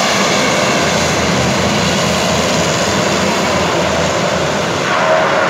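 Twin-engine turboprop plane taxiing up the runway slope and turning onto the apron, its engines giving a loud, steady roar. About five seconds in the hiss drops away and a steadier whine comes through as the plane swings round.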